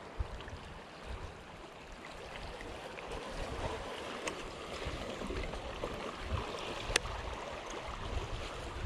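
Small waves lapping against shoreline rocks, with wind rumbling on the microphone and a single sharp click about seven seconds in.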